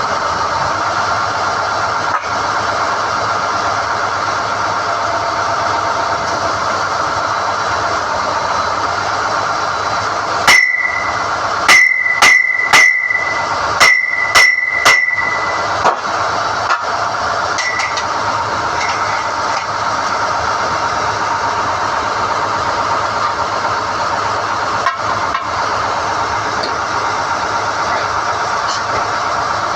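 SDH-1600 core drilling rig running steadily while NQ drill rods are pulled from the hole, with a quick run of about seven sharp, ringing metal-on-metal strikes about a third of the way in.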